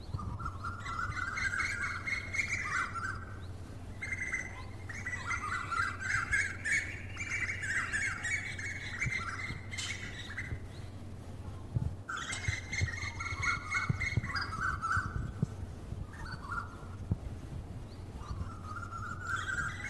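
Birds chattering and squawking in long runs of rapid calls, broken by a few short pauses, over a low steady hum.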